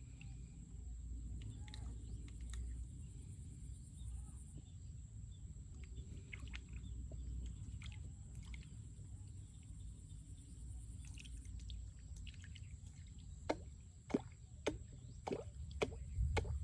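Steady low outdoor rumble with a faint high steady tone, then in the last few seconds a quick run of short, sharp animal calls, each sliding down in pitch.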